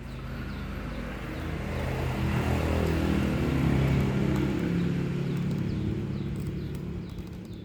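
A motor vehicle's engine passing by: a steady low hum that grows louder to a peak about four seconds in, then fades away.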